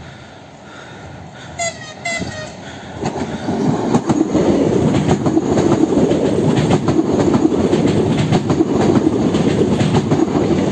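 Electric multiple unit sounding short horn blasts about two seconds in, then passing close by at speed: a loud rumble with rapid wheel clacks over the rail joints.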